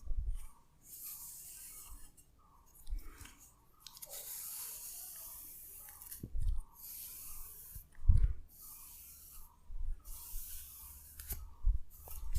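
Hands rubbing through hair and over skin in a close-miked head massage: rustling bursts lasting a second or two, with a dull low thump every few seconds.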